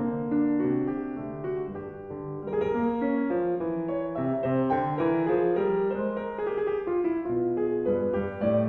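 Background piano music: a steady run of melodic notes with no speech.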